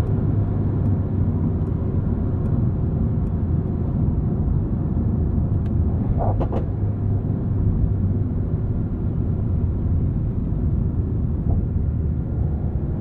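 Mercedes-AMG GT 63's twin-turbo V8 running at steady revs while driving, with a steady low road rumble. A couple of short clicks come about six seconds in.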